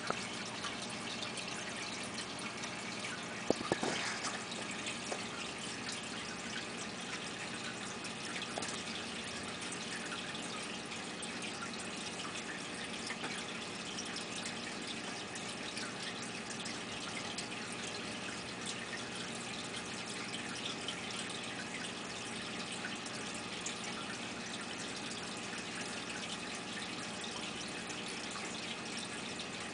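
Steady watery hiss with faint drips and small clicks, and one sharper click about three and a half seconds in.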